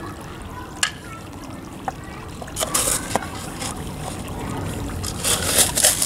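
Birdseed being handled and poured into a feeder: dry rattling hiss in two short spells, about halfway through and again near the end, with a few sharp clicks.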